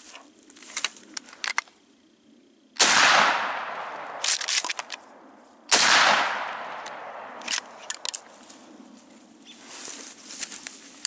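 Two shots from a Mossberg pump-action shotgun about three seconds apart, each echoing away over a second or two. Between them comes a quick run of clicks as a fresh shell is pumped in, and there are more handling clicks before the first shot and near the end.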